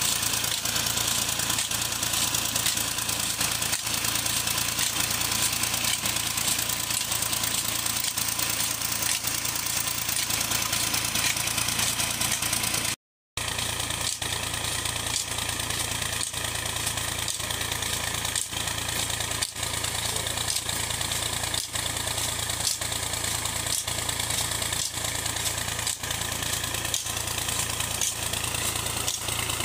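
Tractor diesel engine running steadily under load, driving two tubewell pumps through a long belt and shaft, with water rushing from the pump's delivery pipe. The sound cuts out briefly partway through.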